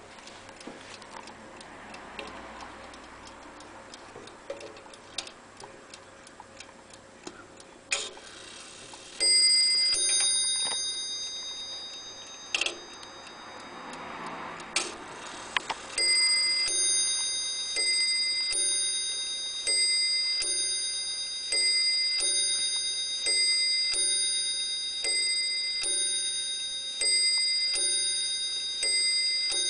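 Ornate mantel clock ticking, with sharp clicks as its hands are turned by hand. The bell strikes once about nine seconds in, then from about sixteen seconds on strikes over and over, a little under once a second, each strike ringing on.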